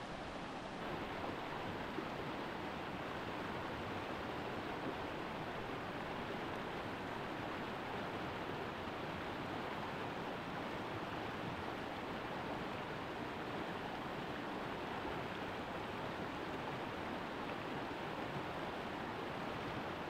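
Steady rush of fast-flowing water, a continuous even roar with no separate splashes or events.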